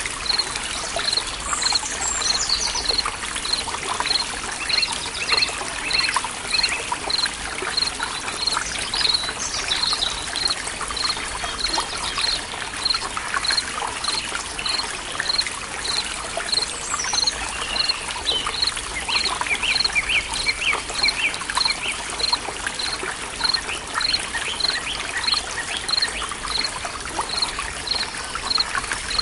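Forest soundscape of a trickling stream with birds singing, and a short high chirp repeating steadily about twice a second throughout. Under it runs a low steady hum, the binaural-beat tone.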